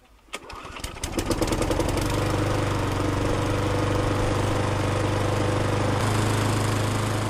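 A small engine starting up. Its firing strokes speed up over the first second or two, then it settles into a steady run.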